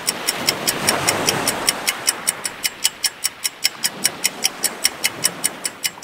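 Rapid, even ticking of a clock or stopwatch sound effect, about five ticks a second, each tick with a bright ringing edge, over a steady wash of sea-water noise.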